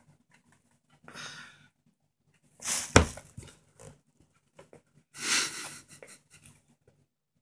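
Three short breathy puffs and small mouth noises during a baby's spoon-feeding, with one sharp click about three seconds in.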